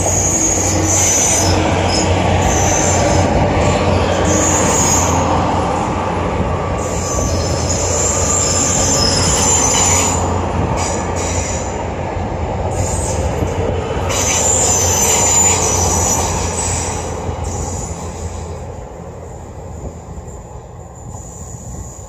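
GWR Class 800 Intercity Express Train passing close by on its underfloor diesel engines. Its engines give a steady low hum under the rumble of wheels on rail, and the sound fades over the last few seconds as the train moves away.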